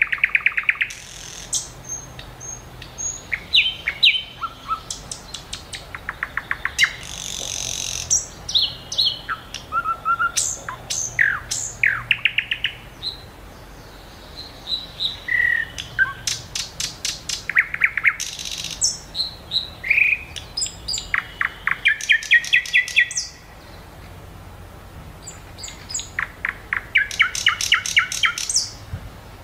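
Small birds chirping and singing: fast trills of repeated high notes mixed with short sweeping chirps, one phrase after another with brief gaps.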